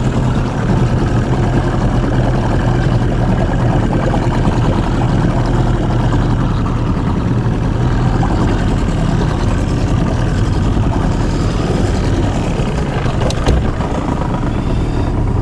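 Small tiller outboard motor running steadily with the boat underway, a constant low drone. A short knock about thirteen seconds in.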